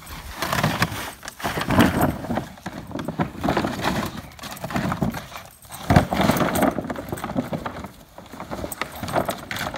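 Thin plastic kiddie pool crumpling, flapping and scraping as two Rottweilers grab and drag it, in irregular bursts of rustling and crackling.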